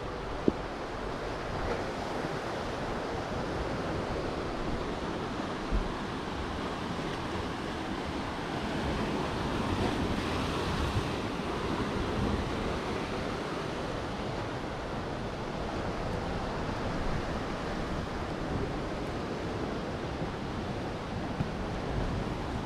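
Sea waves washing on the shore, one surge swelling and fading about ten seconds in, with wind on the microphone and a few short bumps.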